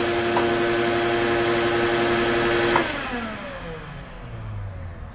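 CNC router spindle running at a steady high speed with a hissing whine, then switched off about three seconds in and winding down in a falling whine.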